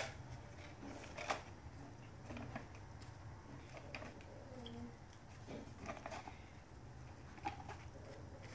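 Foam darts being pushed one at a time into a Nerf blaster's plastic 12-round magazine: faint, scattered plastic clicks and rustles a second or more apart.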